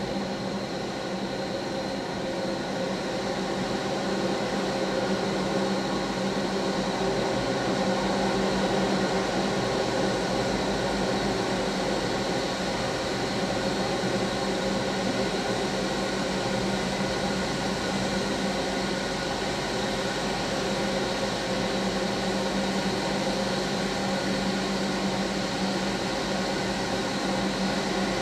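Automatic car wash machinery running, a steady mechanical hum with a high whine, heard muffled from inside a parked car.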